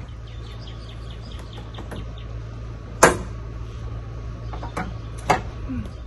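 Hand tools being handled, giving a few sharp metallic clinks, the loudest about three seconds in and two smaller ones near the end, over a low steady hum and faint bird chirps.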